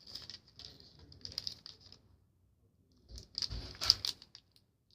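Light clicks, taps and rustles from small objects being handled close to the microphone, with a denser run of taps about three to four seconds in.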